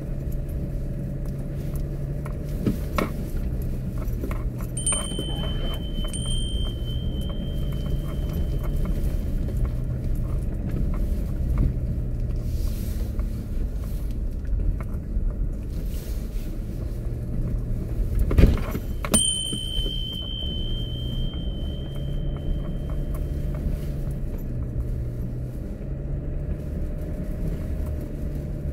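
Kia Mohave SUV crawling along a rough unpaved forest track, heard from inside the cabin: a steady low drone of engine and tyres with the odd knock from bumps, the loudest about 18 seconds in. Twice, about 5 and 19 seconds in, a thin high squeal sounds for a few seconds.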